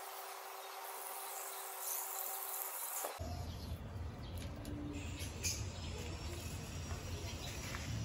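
Garden hose spraying water into a shallow concrete bowl, a steady hiss that cuts off abruptly about three seconds in. After that, outdoor ambience with a low rumble and faint insect and bird chirps.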